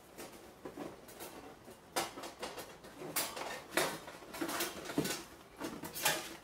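Hands rummaging in a cardboard shipping box, pulling out wire rack shelves: irregular scrapes and rustles of cardboard and packing, with light clatters.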